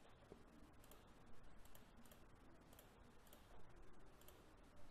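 Faint computer mouse clicks, a few scattered single clicks against near silence.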